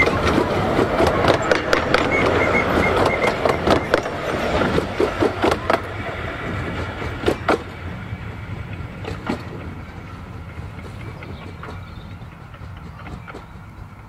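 15-inch gauge miniature steam train's coaches clattering past, their wheels clicking rapidly over the rail joints, the sound fading as the train runs away into the distance.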